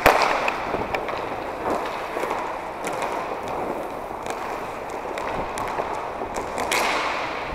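Inline hockey play in an echoing rink: a sharp crack at the start as a stick or puck strikes, then the steady rolling of skate wheels on the plastic floor, with scattered clicks and taps of sticks and puck.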